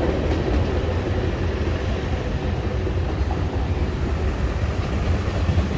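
Diesel freight train rumbling steadily, a deep low-pitched drone.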